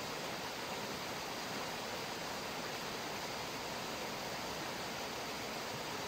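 Steadily rushing water, an even, unbroken hiss with no separate splashes or drips standing out.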